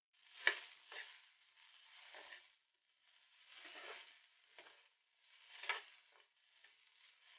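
Spatula stirring sliced onions in a kadhai of hot oil: short bursts of scraping and a few sharp knocks against the pan, the sharpest about half a second in, with faint sizzling. The onions are frying slowly toward brown.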